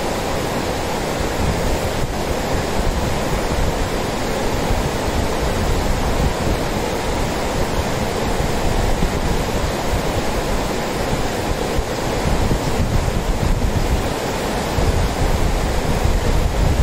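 Mountain river rapids rushing over a rocky bed: a loud, steady, unbroken roar of white water, with some wind buffeting the microphone.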